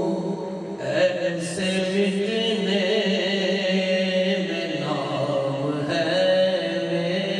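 A man singing a naat, an Urdu devotional poem in praise of the Prophet, into a microphone. He holds long, wavering notes in a chant-like melody, and the pitch shifts about five seconds in.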